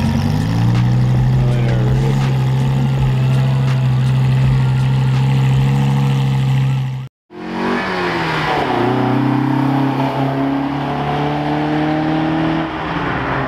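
Lamborghini Gallardo V10 engine running at low revs as the car rolls away. Its note rises slightly at first, then holds steady. After a short break about seven seconds in, a second car's engine pulls away, its pitch climbing gently.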